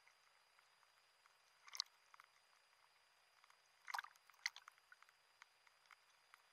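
Small waves lapping and splashing against a camera housing bobbing at the sea surface: faint scattered ticks, one louder splash about two seconds in and a cluster of splashes around four seconds in as a wave washes over it.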